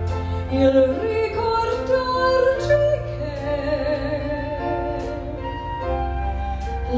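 Background music: a song with a singer holding long, wavering notes over a steady instrumental accompaniment.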